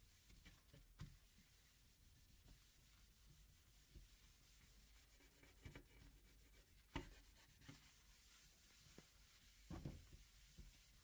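Faint rubbing of a tissue wiped across a white tabletop, with a few soft knocks, the loudest about seven seconds in.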